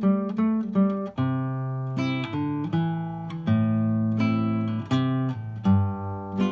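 Classical guitar played solo: a plucked melody over bass notes, quick notes in the first second, then longer ringing notes.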